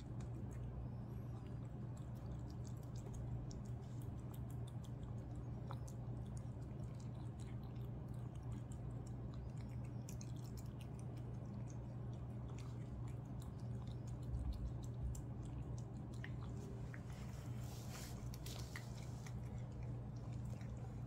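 A cat chewing and lapping wet food from a ceramic bowl: soft, wet clicks that come thicker toward the end, over a steady low hum.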